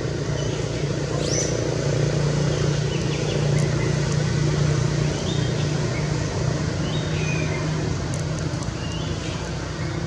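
A low, steady motor-vehicle engine hum that grows louder in the middle and eases off toward the end, with short high chirps every second or two.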